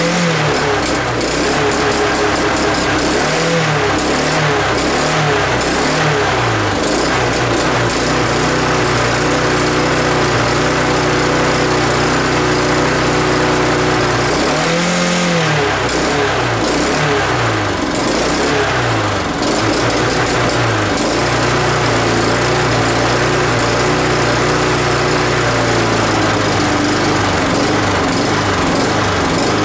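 Honda lawn mower's small four-stroke engine running unevenly: it holds steady for stretches, then its speed repeatedly rises and falls in waves. It's not right; the owner suspects a leaking gasket sucking in air, with a shortened cable leaving it on choke at about half throttle instead of tick-over.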